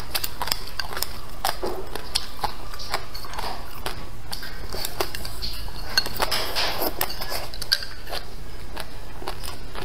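Chopsticks clicking and scraping against a ceramic bowl, with close-up chewing and mouth sounds. The clicks come irregularly throughout, with a busier stretch of scraping and chewing a little past the middle, over a steady low hum.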